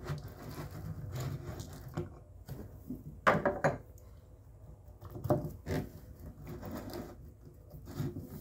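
Scattered metal clicks and knocks of an adjustable wrench and a bolt-and-wing-nut extractor working against a bathtub drain flange. There is a louder cluster of knocks a little after three seconds and another a little after five.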